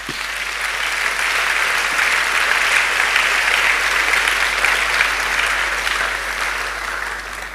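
Church congregation applauding, building over the first couple of seconds, holding, then slowly dying away.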